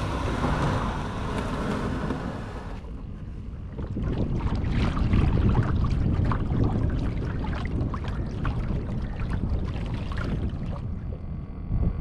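Wind noise on the microphone and water lapping and splashing against a fishing kayak's hull, with frequent short splashes as the kayak moves over choppy water. The sound changes abruptly about three seconds in and again near the end.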